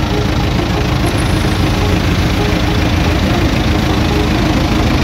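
An engine idling steadily, a continuous low rumble.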